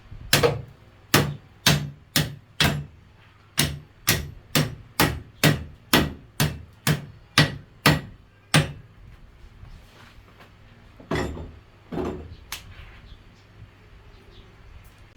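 Hammer blows, a steady run of about sixteen strikes at roughly two a second, then a pause and three more spaced-out blows.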